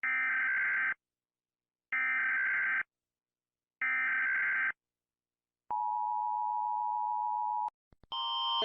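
Emergency Alert System broadcast: three one-second bursts of buzzy digital data tones (the SAME header), then a steady two-note attention tone for about two seconds. Two faint clicks follow, and a louder multi-tone alarm starts just before the end.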